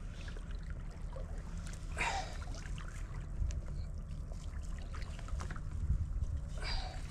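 Wind buffeting the microphone as a steady low rumble, over small waves lapping against the kayak, with two short rustling noises, one about two seconds in and one near the end.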